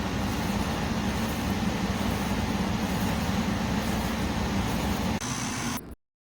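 Portable air conditioner running: a steady fan rush over a low hum, which cuts off abruptly near the end.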